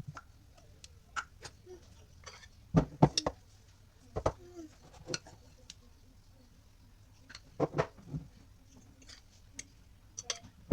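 A few sharp knocks and clatters, several in quick succession about three seconds in, single ones around four and eight seconds, and another at the end.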